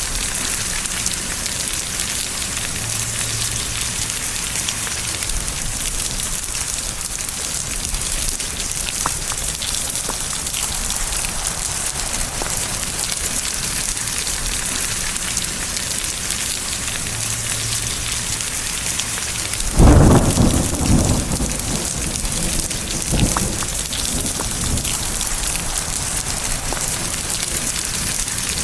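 Steady rain falling. About two-thirds of the way through, a sudden thunderclap cracks and then rolls away in a low rumble, with a second, weaker rumble a few seconds later.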